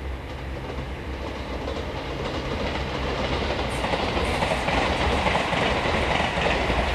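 JR Hokkaido 711 series electric multiple unit running across a river bridge, its wheels and bridge rumble growing steadily louder as the train draws nearer.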